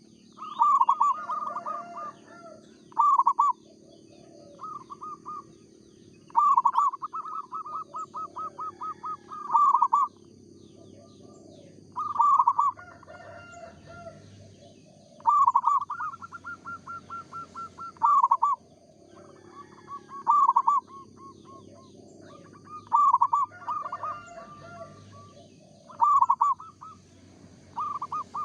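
Zebra dove (perkutut) cooing: repeated phrases of rapid staccato coos every few seconds, some drawn out into long even trills of quick notes. Faint high chirps of small birds sound behind.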